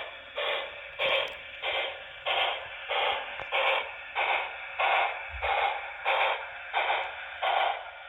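Sound decoder of a Broadway Limited Imports HO scale PRR T1 duplex steam locomotive playing steady steam exhaust chuffs through the model's small onboard speaker. The chuffs are evenly spaced, about one and a half to two a second, as the model runs on the test bench.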